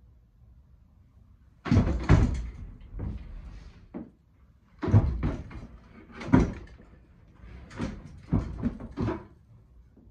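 A series of loud wooden thumps and knocks with rattling between them as a Trek Marlin 5 mountain bike rolls over a plywood shed floor and ramp. The sounds begin suddenly about two seconds in and come in irregular clusters, the hardest hits at about two, five and six seconds, stopping about a second before the end.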